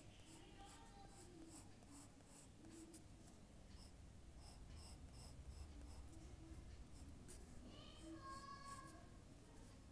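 Faint scratching of a drawing tool on paper: a run of short, quick strokes.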